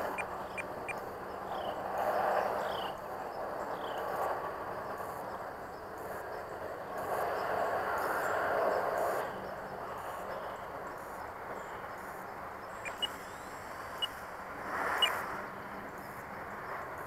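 Radio-controlled model plane's motor and propeller heard from a distance, swelling and fading several times as it circles overhead, with a few short high chirps.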